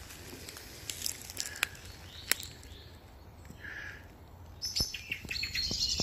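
Wild songbirds calling, a few faint chirps at first, then a livelier run of quickly repeated high notes over the last second or so.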